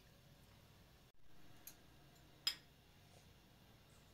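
A few light clicks of spoons and forks against metal plates, the loudest about two and a half seconds in, over quiet room tone.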